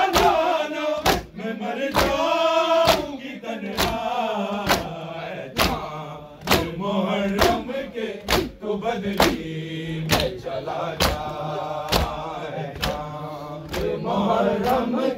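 A group of men beating their chests in unison (Shia matam): a sharp slap about once a second, over a crowd of male voices chanting a noha.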